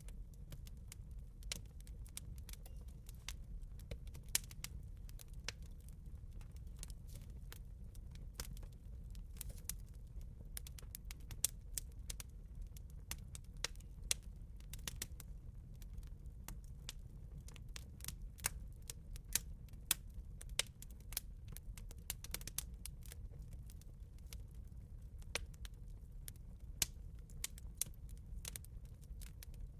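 Campfire crackling: irregular sharp pops and snaps of burning wood over a low, steady rumble.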